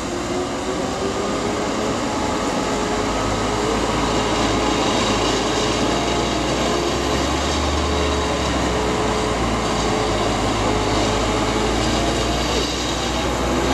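Seik Skybull 30 Fire skyline yarding carriage and its cable machinery running steadily as a log is hoisted up to the skyline: a constant mechanical drone with a faint whine in it.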